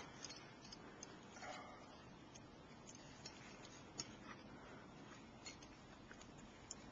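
Near silence with a few faint, scattered small clicks and ticks, the clearest about four seconds in.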